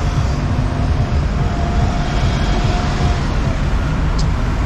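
City street traffic: buses and cars driving through a busy junction, a steady low rumble, with a faint whine for a couple of seconds in the middle.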